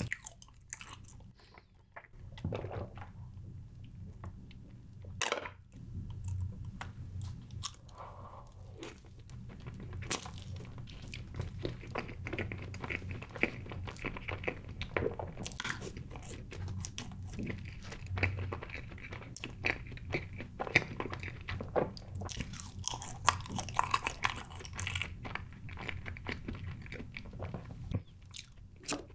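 Close-miked eating sounds: chocolate layer cake being chewed, with many small wet mouth clicks and crackles. It is quiet for about the first two seconds before the chewing begins.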